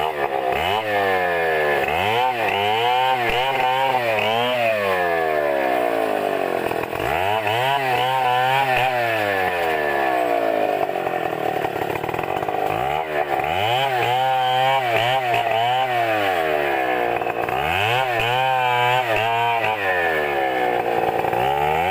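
Chainsaw cutting coconut palm wood, its engine revving up, holding under load and dropping back about four times.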